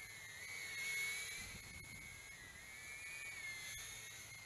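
Warlark Pro 85 brushless micro quadcopter in flight: its motors and ducted propellers give a faint high whine of several close tones that drift up and down in pitch.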